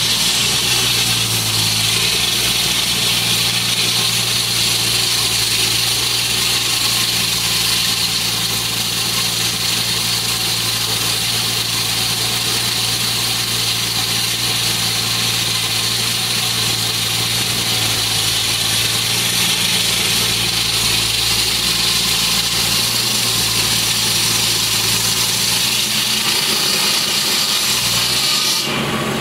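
Walk-behind road saw cutting pavement: its engine runs steadily under a loud, high cutting whine from the blade in the road. Near the end the cutting whine stops abruptly and the engine keeps running.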